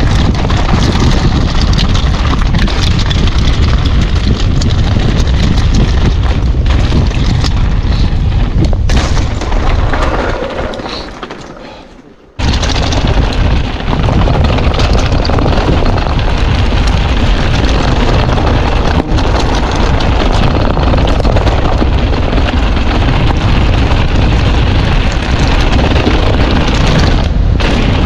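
Strong wind buffeting the action-camera microphone, a loud, deep rumble. It dies away about ten seconds in and cuts back in abruptly a couple of seconds later.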